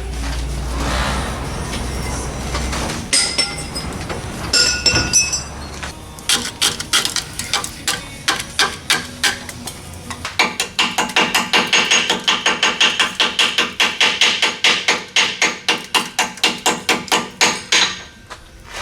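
Rapid, evenly repeated metal-on-metal strikes, about three or four a second, each with a short ring: a hammer or pick chipping rust scale off a rusted truck rear axle. The first few seconds hold a steady low rumble and a few scattered clinks before the hammering starts.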